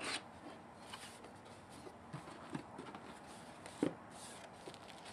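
Cardboard camcorder box being handled and opened: faint rustling and scraping with a few light taps, and one sharper knock nearly four seconds in.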